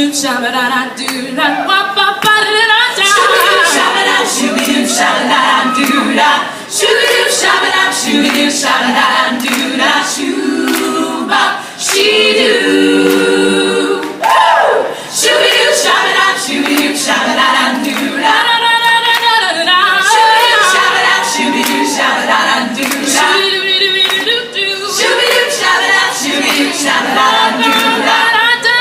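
All-female a cappella group singing in close harmony, with rapid short, clipped syllables throughout.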